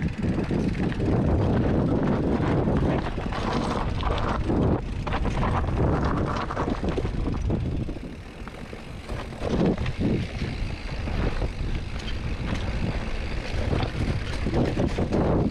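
Wind rumbling on the action-camera microphone and knobby tyres rolling over dirt, dry leaves and rocks as a Specialized Levo SL mountain bike descends steep, chunky singletrack, with clatters from the bike over rough ground. The rush eases briefly about halfway.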